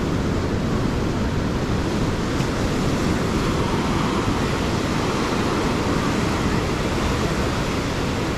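A steady wash of ocean surf on the beach, with breeze rumbling on the microphone.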